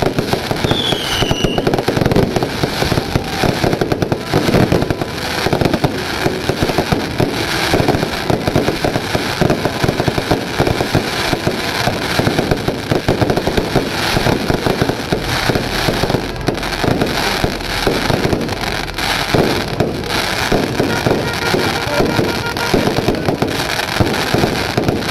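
Aerial fireworks going off: a dense, unbroken run of bangs, pops and crackles from bursting shells. A short falling whistle comes about a second in.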